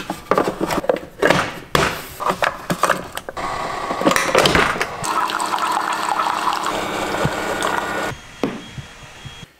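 Keurig single-cup coffee maker: knocks and clatter as its plastic water reservoir is handled, with water splashing. From about five seconds in the brewer runs with a steady hum and pouring sound for about three seconds, then cuts off suddenly.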